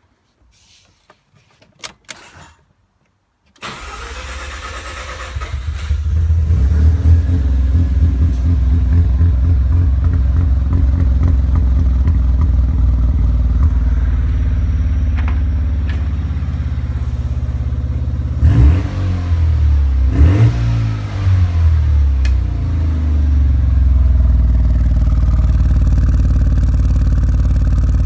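A few clicks, then a Mazda RX-7's rotary engine is cranked on the starter and catches after about two seconds. It settles into a low idle, with two quick revs of the throttle a little past the middle; this is the misfire the owner is showing.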